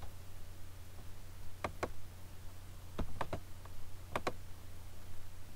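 Computer mouse button clicking: a few sharp clicks, mostly in quick pairs, over a low steady electrical hum.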